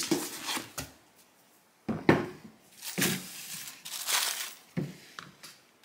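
Cardboard box and packing rustling and scraping as heavy LiFePO4 prismatic battery cells are lifted out, in several short bursts, with a couple of dull knocks as the cells are set down.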